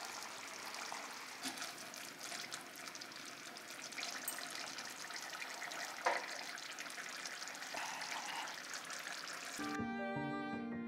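Thick curry simmering in a clay pot: a steady bubbling with many small pops and crackles. Near the end it cuts off and violin music takes over.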